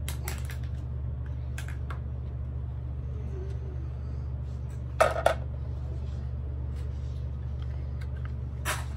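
Plastic toy-kitchen pieces being handled: a few sharp clacks and knocks, a double one about five seconds in the loudest, over a steady low hum.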